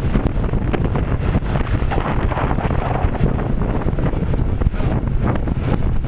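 Strong wind buffeting the microphone aboard a sportfishing boat, over the steady rumble of the boat and the water around it.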